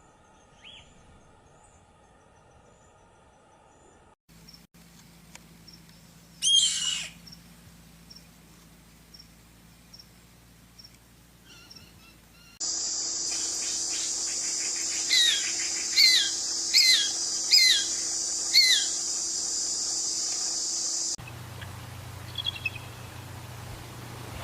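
Birds calling: one loud call sliding down in pitch, then a run of five short downward-sliding calls about a second apart over a steady high hiss.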